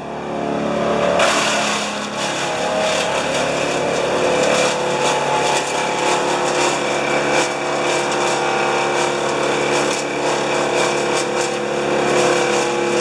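Wood chipper running at speed, a steady engine drone with a dense rush of crackling and grinding that starts about a second in, as branches are fed through and chipped.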